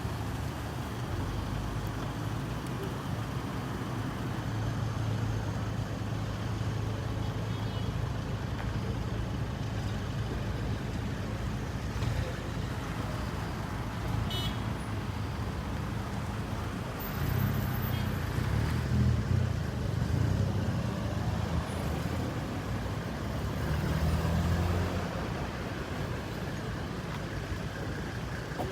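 Street traffic: a steady low engine rumble, with vehicles passing louder twice in the later part.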